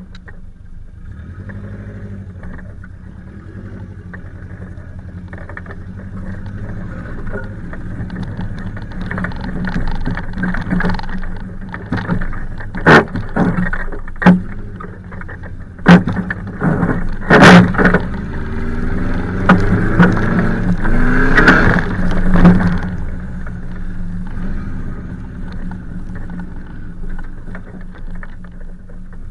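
Subaru Forester's flat-four engine running as the car crawls over rough ground, heard from outside the body near the rear wheel. Several sharp knocks come through about halfway, then the engine revs up briefly before settling back.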